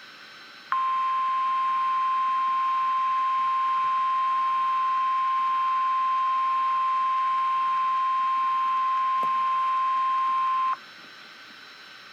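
Weather-radio warning alarm tone: one steady, high single-pitch beep held for about ten seconds, starting just under a second in and cutting off suddenly, over constant radio hiss. It is the attention signal that comes before a severe thunderstorm warning is read out.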